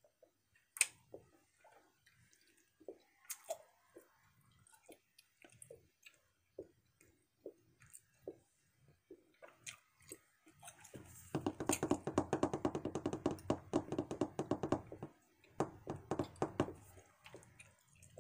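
A person chewing a large wad of bubble gum, five pieces at once, making wet smacks and clicks about once or twice a second. The chewing grows louder and denser for a few seconds past the middle.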